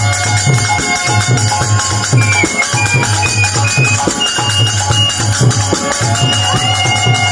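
Kirtan music with no singing: a violin plays held high melody notes over a steady beat on barrel drums and constant jingling percussion.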